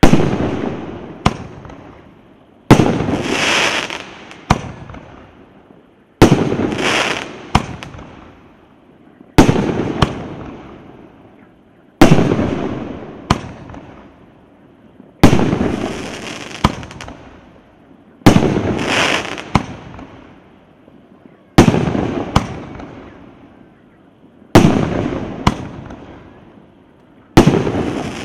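Multi-shot firework cake (С9008 Gromoverzhets, 19 two-inch shots) firing shot after shot, about one every three seconds. Each shot is a sharp bang, then a crackle that fades, with a smaller pop a second or so later.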